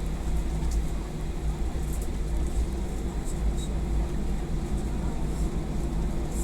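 Airliner cabin noise while taxiing on the ground: a steady low rumble with a constant hum from the engines and airframe, and a few faint ticks.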